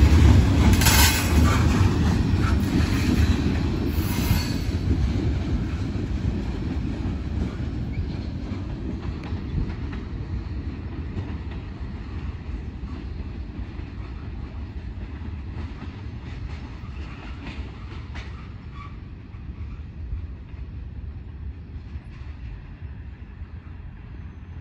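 The last cars of a freight train, ending in a tank car, rolling past: steel wheels squeal and click over the rail joints for the first few seconds, then the low rumble fades steadily as the train moves away.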